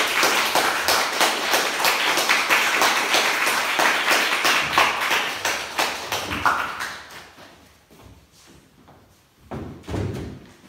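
Small audience applauding, thinning out and dying away about seven seconds in; a short low thump near the end.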